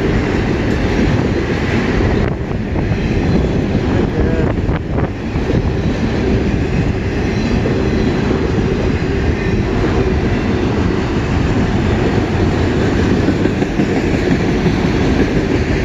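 A long freight train's cars rolling past close by: a steady, loud rumble and rattle of steel wheels on the rails.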